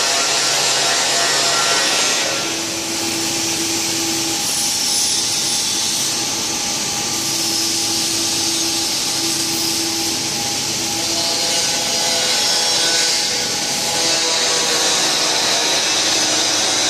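CNC plasma cutter cutting sheet metal: the plasma torch gives a loud, steady hiss, with a faint whine from the machine that starts and stops at intervals.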